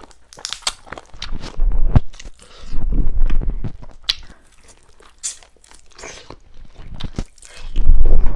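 Close-miked eating of cooked chicken: biting, chewing and crunching, with many short wet clicks and crackles. Louder bites come near the start and end, with quieter chewing in between.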